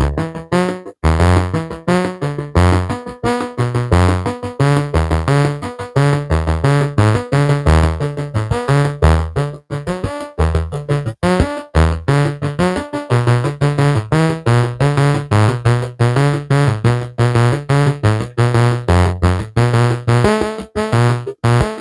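Synthesizer music: a fast run of short, plucked-sounding keyboard notes over a bass line that steps between pitches.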